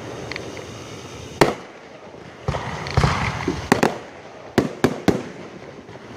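Fireworks show: aerial shells bursting in a run of sharp bangs, about seven, with a louder crackling stretch about three seconds in.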